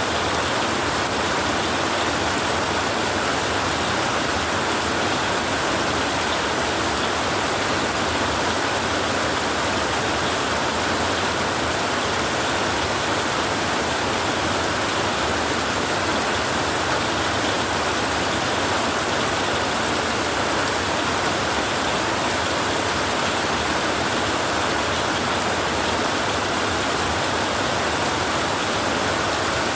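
Heavy rain drumming steadily on a tin roof, a dense, unbroken hiss of drops with no pauses or gusts.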